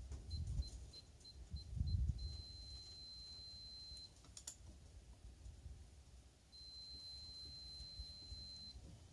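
High electronic beeping: about five short pips, then a steady high tone for about two seconds, and the same tone again for about two seconds near the end. Low thumps come twice early on.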